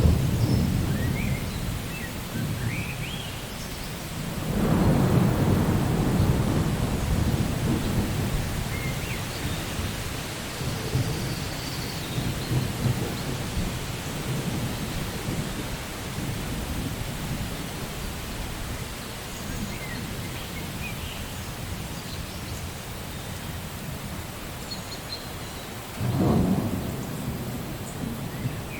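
Steady rain with rolls of thunder: a rumble dying away at the start, a long roll about four seconds in that fades slowly, and another roll that starts suddenly near the end.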